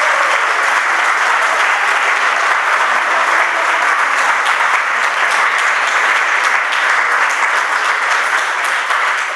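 Audience applauding: dense, steady clapping that begins to die down near the end.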